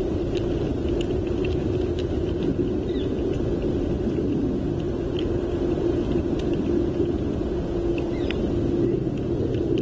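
Steady low outdoor rumble picked up by the nest camera's microphone, with a faint steady hum and scattered faint high ticks.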